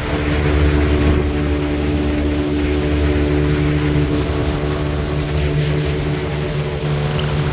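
Motorboat engine running at a steady pitch while the boat is under way, with the hiss of water churning in its wake.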